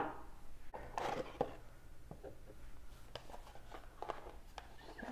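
Packaging being handled: a sharp knock at the start, then scattered light taps, clicks and a brief rustle as boxes and items are moved about.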